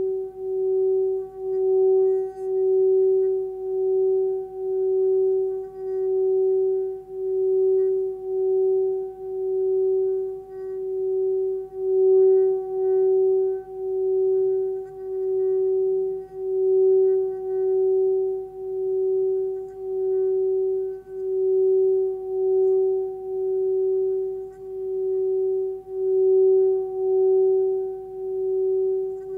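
Forged singing bowl tuned to about 380 Hz (F#) singing with a steady, pure tone as its rim is rubbed, with a slow wobble in loudness about once a second and a faint higher overtone above it.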